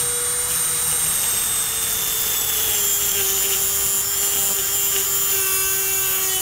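Dremel rotary tool with a cutoff wheel spinning at high speed and cutting through a copper heat pipe, giving a steady high whine over a gritty grinding hiss. The whine drops slightly in pitch about three seconds in as the wheel bears into the pipe, then climbs back near the end.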